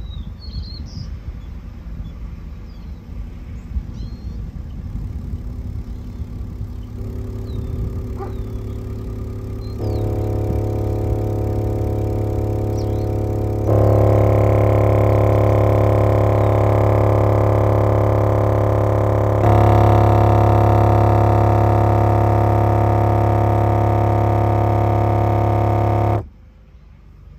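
A 10-inch Memphis car-audio subwoofer in free air playing a steady 35 Hz test tone, pushed in a power-handling stress test. The volume is raised in several steps, each louder and with a harsher, buzzier edge, and the tone cuts off suddenly near the end.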